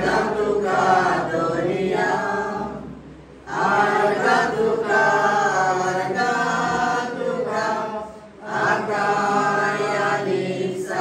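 A group of men and women singing together in unison, with one man singing into a microphone. Three long sung phrases, with short breaks about three and eight seconds in.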